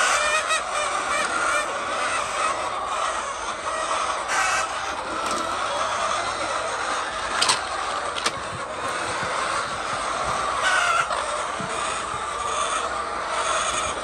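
A flock of chickens calling and clucking together in a dense, steady chorus. Two short sharp clicks come a little past the middle.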